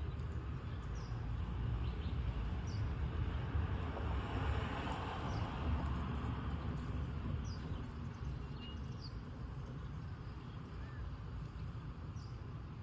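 Outdoor ambience: a steady low rumble, with a broad swell of noise that peaks about five seconds in and fades away, and faint short high chirps every second or two.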